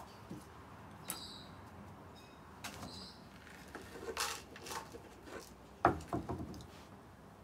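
Scattered light knocks and rustles of a plastic bowl and a small plastic tub being handled, with the loudest knock about six seconds in.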